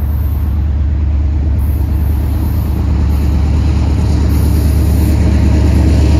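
Deep, steady rumble of approaching GE AC4400CW diesel locomotives, slowly growing louder as the freight train nears, over passing highway traffic.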